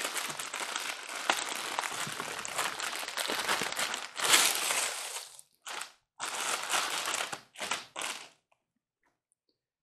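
Clear plastic bag crinkling and rustling as a long cardboard box is handled and pulled out of it, continuous at first, then in a few short bursts, stopping near the end.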